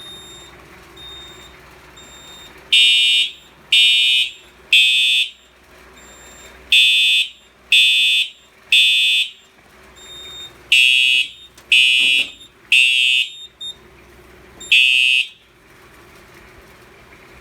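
Simplex TrueAlert horn strobe sounding the temporal-three fire evacuation code: three half-second horn blasts about a second apart, a pause, repeated three times. A fourth round cuts off after its first blast as the alarm is silenced.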